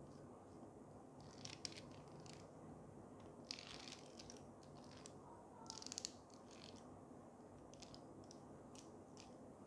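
Faint clicks and scrapes of a black anodized steel magic arm being handled and unfolded, its joints moving as it is straightened. A quick run of clicks a little past halfway is the loudest part, with a few small ticks near the end.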